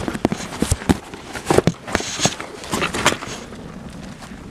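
Irregular crackles and pops from cardboard burning in a metal fire drum, busiest over the first three seconds and thinning out near the end.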